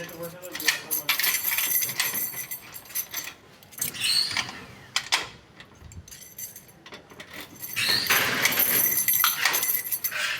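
Metal clicks and rattling of door lock hardware being handled and fitted, with busy stretches of clinking at about one second in and again near the end.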